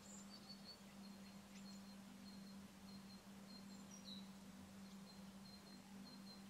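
Near silence with a steady low hum and a small bird's faint, high, thin call repeated a couple of times a second.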